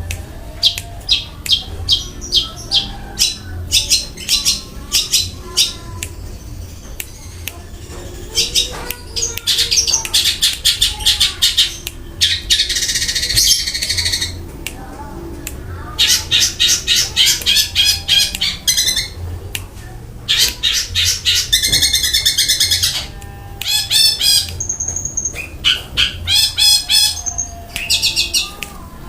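Long-tailed shrike (cendet) singing a loud, varied song: bursts of very rapid rolling trills and harsh chattering phrases, each lasting a second or two, with short pauses between them.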